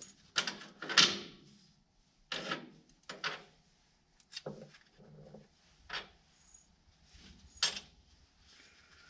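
Metal tools and parts being handled: a series of sharp clinks and knocks at irregular intervals, the loudest about a second in.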